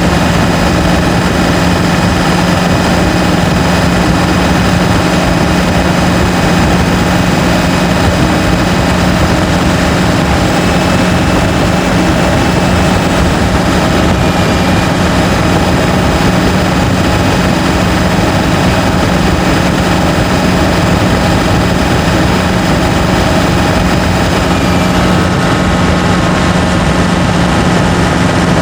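Turbocharged van engine running steadily under load on the road, heard from inside the cab: a constant low engine drone with steady higher whining tones over road and wind noise.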